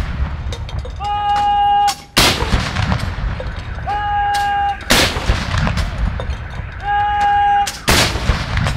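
WWII-era M5 3-inch field guns firing 75mm blank rounds of black powder in a gun salute: three loud booms about three seconds apart, each rolling on in a low rumble. A short steady tone, under a second long, sounds about a second before each shot.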